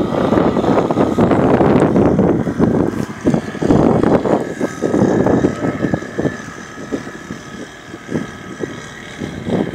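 Outboard motor of a small service boat running as the boat pulls away, growing fainter after about six seconds.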